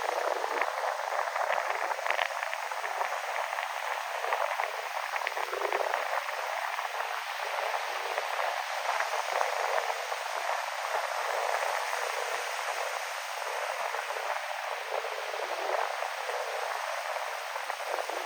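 Ocean surf in the wind: a steady rush of waves breaking and washing, with a fine fizzing crackle of foam, swelling a little now and then. It sounds thin, with no low rumble.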